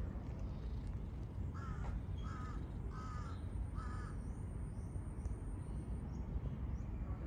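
A crow cawing four times in quick, even succession, starting about a second and a half in, over a steady low background rumble.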